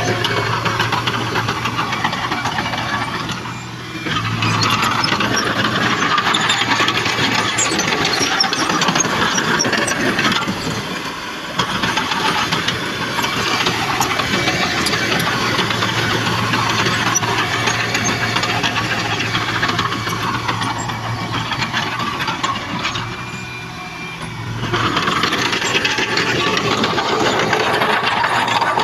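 Heavy diesel earthmoving machinery working: engines running hard with mechanical clatter, easing off briefly three times.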